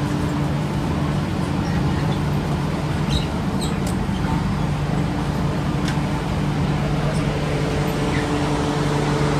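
MTR Q-train electric metro train running, heard on board: a steady low hum from the traction equipment over an even rail and running rumble, with a few faint clicks and squeaks. A higher hum tone joins about three-quarters of the way through.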